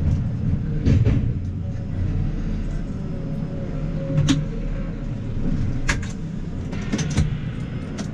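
JCB telehandler's diesel engine running steadily at low revs, heard from inside the cab as the machine creeps to a stop. A few sharp clicks and knocks sound over the engine.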